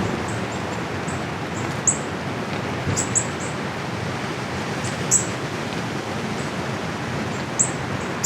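Steady wind noise, with brief high bird chirps scattered through, the loudest about two, three and five seconds in.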